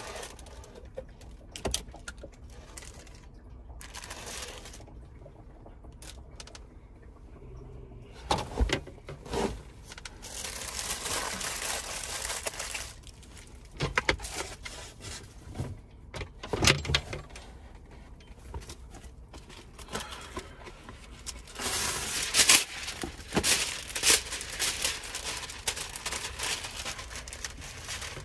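Kitchen handling sounds from smoothie ingredients and utensils being prepared by hand: scattered clicks and knocks, with two noisy stretches of a few seconds each, about ten seconds in and again near the end.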